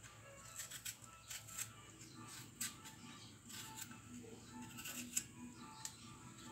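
Kitchen knife peeling a raw potato by hand: faint, irregular scrapes and clicks as the blade cuts through the skin.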